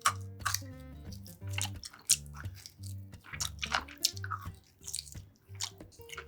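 Close-miked eating: a person biting and chewing food, with many short, irregular sharp clicks and wet mouth noises. Background music with held low notes plays underneath.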